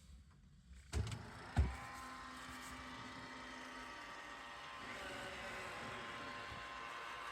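Two short knocks, then a household appliance's motor starts and runs with a steady hum.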